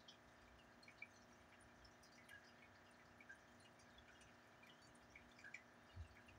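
Near silence: faint room tone with a steady low hum, a scatter of faint tiny ticks, and one soft low thump about six seconds in.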